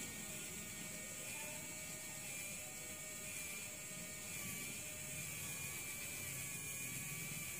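Faint, steady whir of a small electric motor, with thin wavering whine tones over it.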